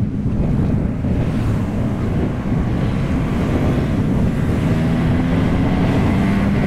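Wind buffeting the microphone on a moving motorcycle, with the bike's engine note showing faintly under it in the second half.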